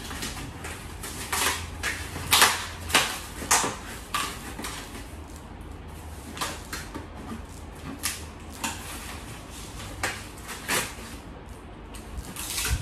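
Large flat-pack cardboard box being opened and handled: a run of irregular scrapes, rustles and knocks of cardboard, loudest a few seconds in, over a faint low hum.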